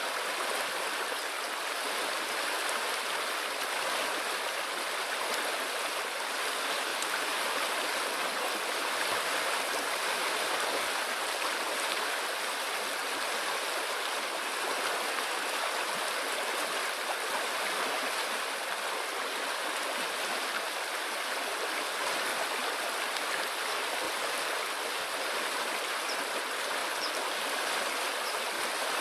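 River water flowing steadily, an even rush of noise with no bowl tones or strikes in it.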